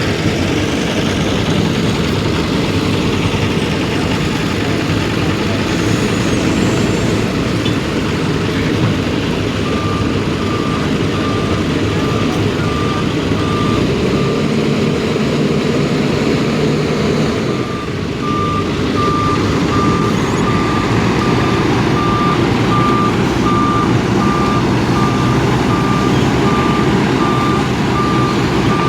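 Heavy diesel road-paving machinery running steadily, with a reversing alarm beeping on one high pitch at about two beeps a second: a machine backing up. The beeping starts about a third of the way in, stops for a few seconds around the middle, then resumes.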